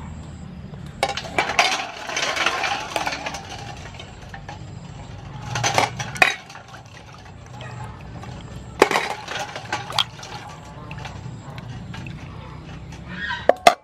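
Water splashing and sloshing in a stainless steel bowl as sea snails in their shells are rubbed and rinsed by hand, with the shells clinking against the metal. It comes in several spells: about a second in, near six seconds, around nine seconds and just before the end.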